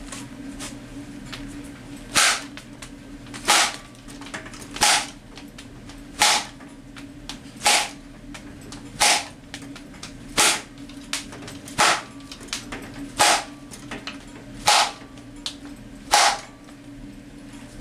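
About a dozen sharp, loud smacks, roughly one every second and a half, as a loose speaker woofer is beaten. A steady low hum runs underneath.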